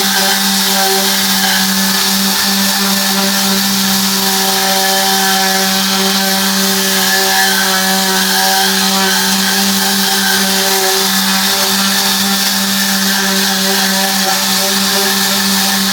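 Tornador air-powered cleaning gun blowing with a constant hiss, over the steady hum of the motor driving it. It is cleaning car upholstery.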